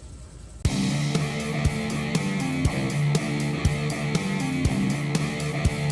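Rock music with distorted electric guitar and drums, starting abruptly about half a second in, with a steady beat.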